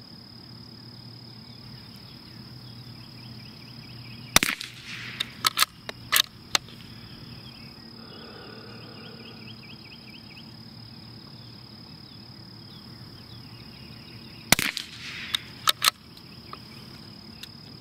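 Two shots from a CZ 457 bolt-action .22 LR rifle, about ten seconds apart, each a sharp crack followed by a few quick clicks of the bolt being worked. Underneath, a steady high drone of insects and chirping crickets.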